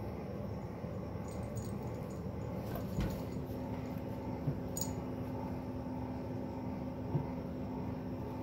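A small bell on a kitten's collar giving a few faint jingles as the kitten wrestles with a hand, over steady background noise, with a steady low hum that starts about three seconds in.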